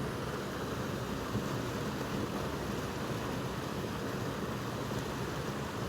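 Steady low rushing outdoor noise with no distinct events.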